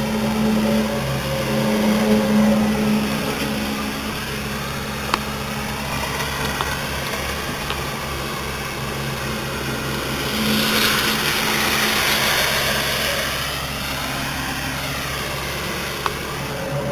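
An unidentified outdoor droning hum, steady, with two held low tones. A rushing noise swells a little past the middle and fades.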